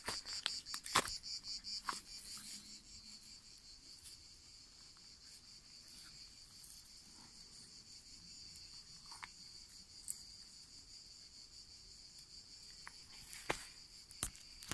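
Insects chirring steadily with a high, rapidly pulsing trill, and a few sharp crunches of footsteps on dry grass and stones, mostly near the start and the end.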